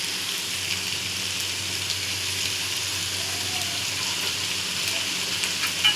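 Chicken pepper fry sizzling steadily in oil in a kadai as the gravy cooks down nearly dry, with a few faint ticks.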